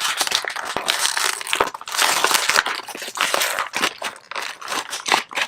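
Taped-shut toy packaging being torn and pulled open: a continuous run of crinkling, crunching and crackling with scattered sharp clicks.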